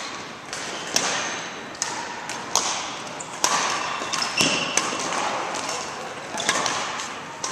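Badminton rally: sharp racket hits on the shuttlecock, roughly one a second, echoing in a large indoor hall.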